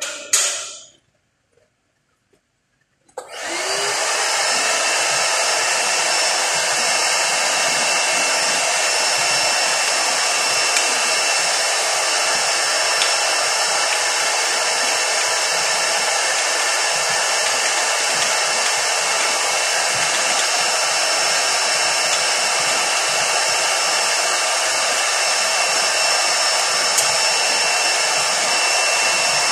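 Canister shop vacuum switching on about three seconds in, its motor whine rising as it spins up, then running steadily with a loud rush of air and a thin high whine. A brief burst of noise comes just before, right at the start.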